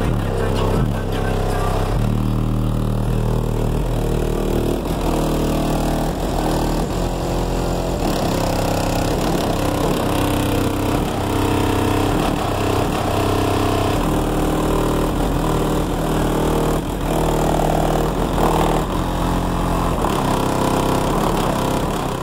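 Bass-heavy music played loud through a car audio system of ten 10-inch NVX subwoofers, heard from outside the truck, with deep bass notes changing pitch every second or so.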